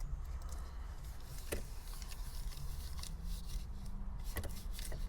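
Two-part epoxy putty stick being kneaded by hand to mix it: faint squishing and scraping with a few sharp clicks, over a low steady hum.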